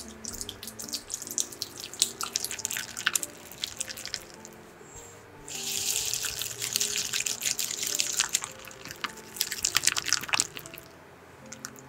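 A silicone whisk beats soft cream cheese in a glass bowl, with a run of quick wet clicks and squelches. In the middle there is a steady hiss for about three seconds, then the clicking whisking comes back. Soft background music plays underneath.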